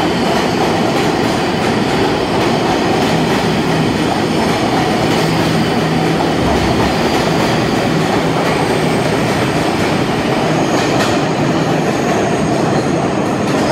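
R188 subway train passing through an underground station platform: loud, steady wheel-on-rail running noise from the moving cars.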